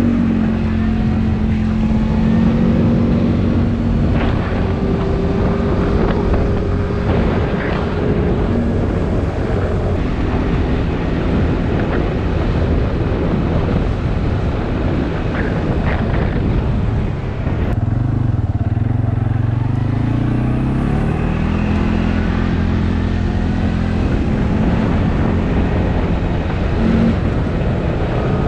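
Quad bike (ATV) engine running under way, its pitch shifting with the throttle over a steady rush of wind and ground noise. About two-thirds of the way through, the revs drop and climb again.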